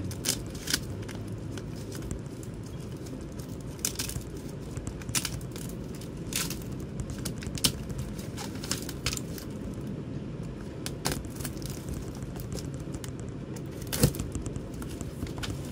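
Packing tape being picked at and peeled off a cardboard parcel: irregular small clicks, crinkles and short tearing sounds, with a sharper click about 14 seconds in.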